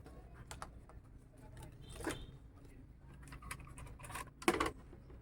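Scattered light clicks and taps of small parts and tools being handled on a workbench, with two louder clattering knocks about two seconds and four and a half seconds in.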